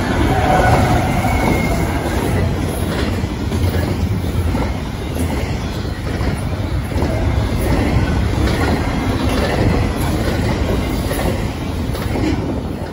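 Double-stack container freight train of well cars rolling past close by: a steady rumble of steel wheels on rail with clicks over the rail joints, and a faint high wheel squeal in the first couple of seconds.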